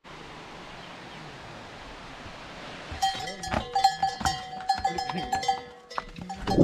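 Faint steady hiss, then from about three seconds in, metal bells struck and clanking over and over with a ringing tone.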